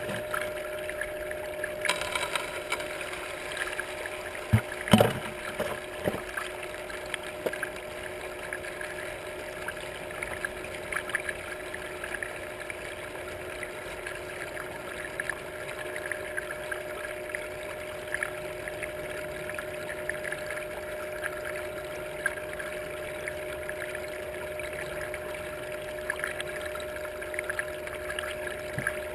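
Water running steadily down a small metal sluice box, over the steady hum of the pump or motor that feeds it. About five seconds in come a few sharp knocks, and gravel and dirt wash through the riffles.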